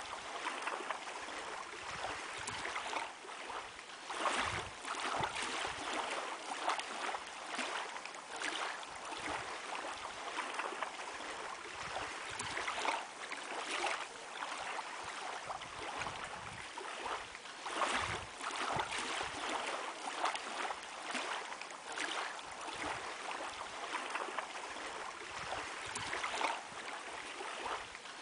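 Water lapping and splashing against a shore in uneven surges.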